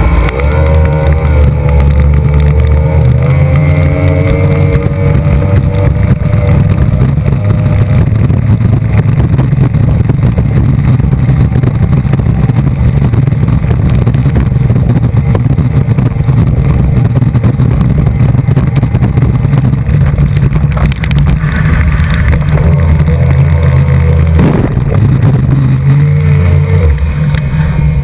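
Mercury 2.5 EFI V6 two-stroke racing outboard running hard, heard from the boat's cockpit over wind and water spray. Its pitch climbs over the first few seconds as the boat accelerates, and the engine note eases and changes near the end as the boat reaches the turn buoy.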